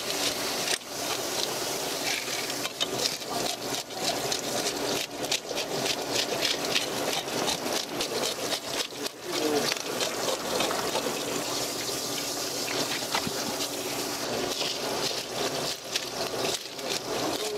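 Water running from a spray nozzle onto a large red sea bream in a sink, with the irregular rasping strokes of a fish scaler scraping off its scales.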